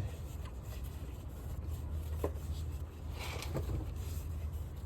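Hand tools working on the timing belt tensioner: a sharp metallic click about two seconds in and a brief scrape a little past three seconds, over a steady low hum.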